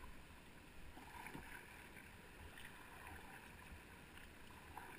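Faint sound of a canoe being paddled on a calm river: soft paddle strokes and water lapping at the hull.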